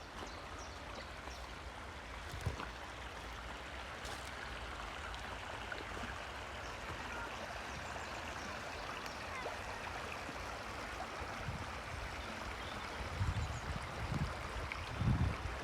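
A shallow stream flowing steadily over stones, with a few low thumps near the end.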